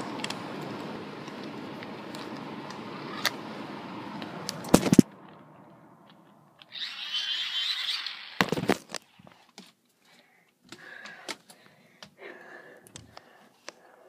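Steady rumbling noise of a central air conditioner running, cut off about five seconds in by a loud knock. Afterwards only a brief hiss and scattered handling clicks are heard.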